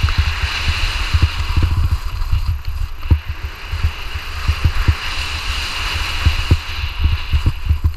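Wind buffeting an action camera's microphone during a fast ski descent, heard as a loud, irregular low rumble with many thuds, over a steady hiss of skis sliding on wind-crusted snow.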